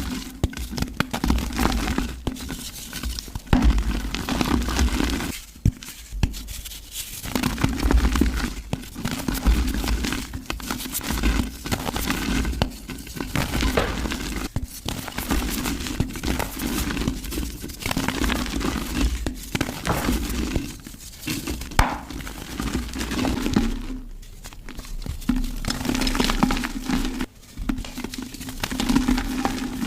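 Mud being crushed in a golden pot: a continuous run of irregular crunching and crumbling, with occasional clinks, pausing briefly a few times.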